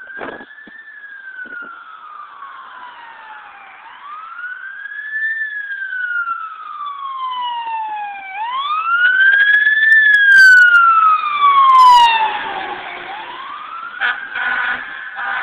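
Fire engine siren on the wail setting: a slow rise and fall repeating about every four seconds, growing louder as the engine approaches and loudest about two-thirds of the way through.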